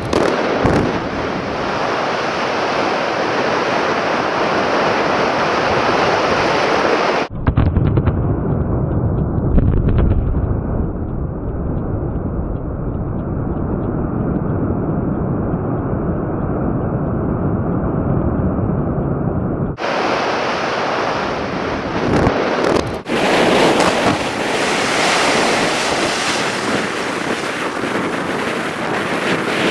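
Wind buffeting the microphone, then about seven seconds in a quarry blast: a quick series of sharp detonations and a deep rumble as the blasted rock face collapses, rumbling on for about twelve seconds before the wind noise returns.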